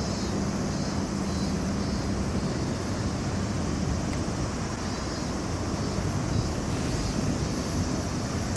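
Steady outdoor rumble: wind buffeting the microphone over a distant engine drone, with a faint steady hum that fades out about two and a half seconds in.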